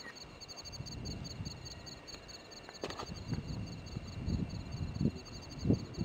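Crickets chirping steadily in a fast, even pulse, with low rumbles and thumps underneath; a sharp knock about three seconds in.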